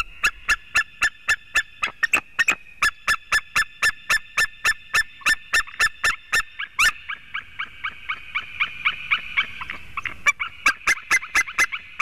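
White-tailed eagle calling: a long series of short, sharp, high notes, about four a second. The notes grow fainter through the middle, then loud again for the last couple of seconds.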